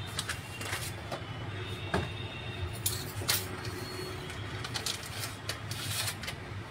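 A plastic packet of samosa strips being handled: scattered crinkles and light taps over a steady low hum.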